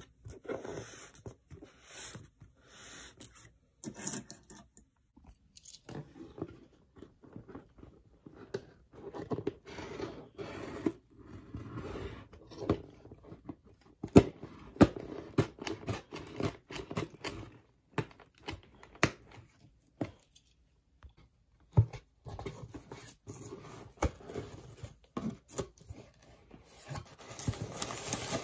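Cardboard shipping box being handled and opened by hand: irregular scrapes, taps and tearing of tape and flaps, with crumpled packing paper rustling near the end.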